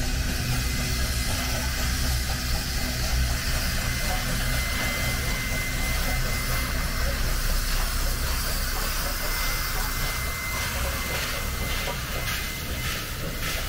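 5900-class 2-8-2 steam locomotive 5917 working a train past at low speed, with a steady hiss of steam. As it draws close near the end, regular beats come about twice a second.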